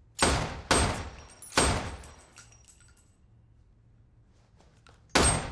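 Four gunshots: three in quick succession within the first second and a half, then a pause and one more near the end, each with a short ringing decay.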